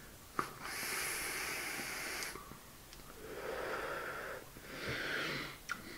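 A click, then a long draw on an electronic cigarette: air hisses through the atomiser for about two seconds. A slow, breathy exhale of the vapour follows in two parts.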